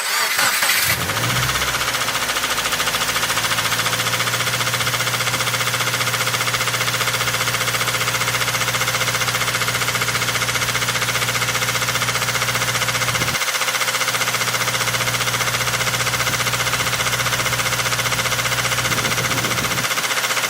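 Car engine starting up, then idling steadily with an even knock, which the owner identifies as a bad bearing (rod knock).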